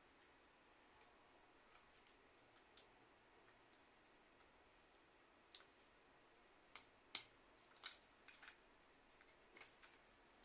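Faint, scattered clicks and taps of small plastic parts of a thermostatic radiator valve being handled during disassembly, the loudest click about seven seconds in, over quiet room hiss.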